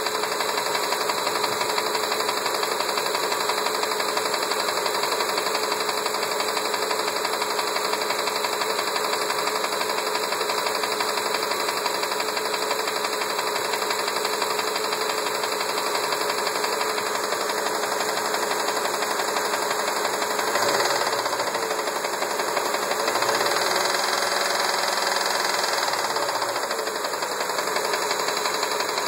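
1999 Ford Expedition's 5.4-litre V8 running with a knocking sound of unknown cause. The engine is revved briefly about two-thirds of the way through, then again for a few seconds soon after.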